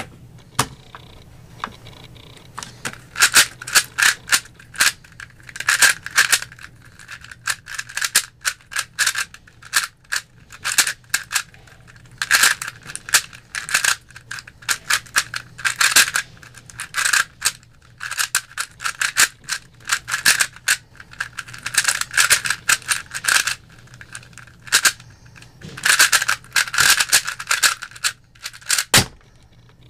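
Plastic speed cube being turned fast, a rapid clicking and clacking of layers in quick bursts with short pauses, with a single low thud near the end.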